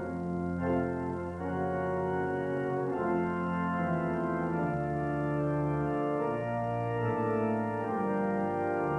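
Organ playing sustained chords that change every second or two over a deep bass, heard dull and band-limited from an old VHS tape recording.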